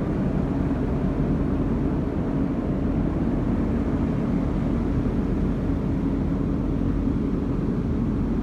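A motor running steadily with a low, unchanging hum.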